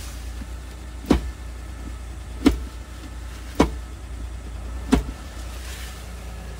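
Four sharp clunks, about a second apart, as the short four-wheel-drive selector lever of a 1996 Mazda Scrum kei truck is shifted back and forth, over the low steady hum of the truck idling.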